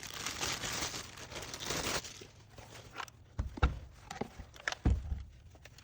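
Packaging crinkling and rustling for about two seconds as it is handled, followed by a few light knocks.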